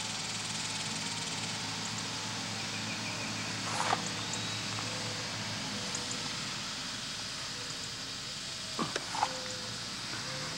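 Steady outdoor background hiss with a faint low hum, broken by a few brief knocks about four seconds in and twice near the end.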